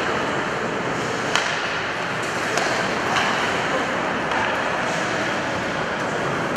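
Ice hockey play in a rink: skates scraping the ice and sticks hitting the puck, with a sharp clack a little over a second in and a few fainter knocks after it.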